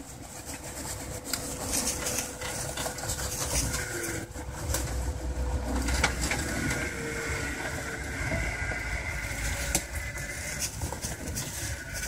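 Rock crawler's engine running at low revs, pulling harder about four to six seconds in as it works up a rock ledge, with scattered knocks and clicks of tyres and chassis on rock.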